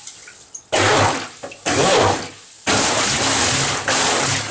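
A 53 mm electric jet-drive unit run in short bursts while held submerged in a bathtub: its motor hums and the water churns and rushes with each burst. It surges three times about a second apart, the last burst held longer.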